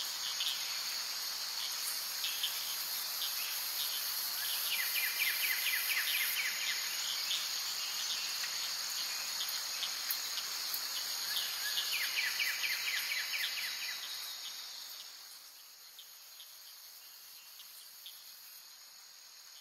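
A steady, high-pitched chorus of insects, like crickets, with two short bursts of rapid trilling; it fades down about three-quarters of the way through.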